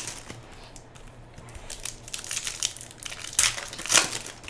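Crinkling of trading-card pack wrappers being handled, in irregular bursts that grow louder and busier toward the end.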